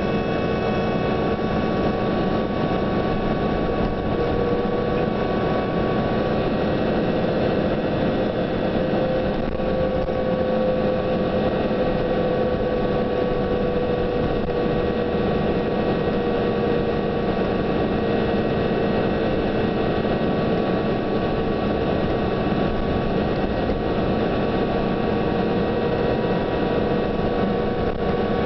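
Cabin sound of a New Flyer DE42LFA diesel-electric hybrid bus under way: steady drivetrain and road noise with a prominent whine that drifts slowly up and down in pitch.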